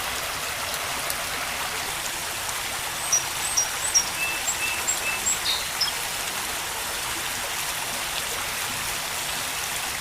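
Steady rush of running water, like a stream, with a few short high chirps about three to six seconds in.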